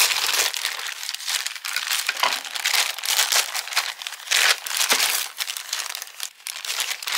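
Packaging crinkling as a delivery packet is opened and unwrapped by hand, a continuous rustle with many sharp crackles.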